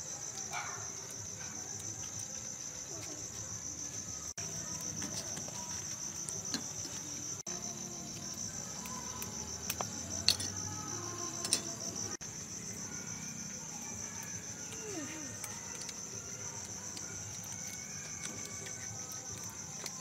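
Night insects, crickets, chirring in a continuous high-pitched trill. A few light clicks of a spoon against a bowl come about ten and eleven and a half seconds in.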